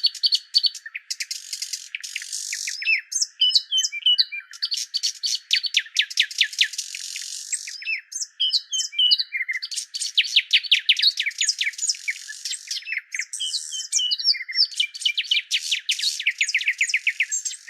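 Bird song with no low end: quick runs of short chirps and falling whistled notes, with a similar trilling phrase returning about every five seconds.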